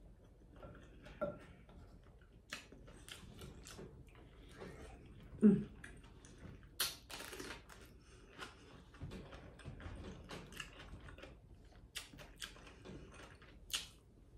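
Close-miked eating: wet chewing with many small mouth clicks and smacks, broken by several sharp crunchy bites into raw cucumber. About five and a half seconds in comes one short, louder low sound from the mouth or throat.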